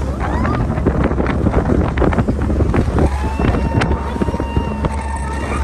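Speedboat running at speed, its motor a low steady drone under heavy wind buffeting on the microphone caused by the boat's speed.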